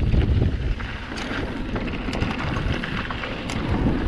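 Mountain bike ridden down a trail: wind buffeting the microphone and a rough rumble from the tyres over the ground, with scattered clicks and rattles from the bike. It runs a little quieter about a second in.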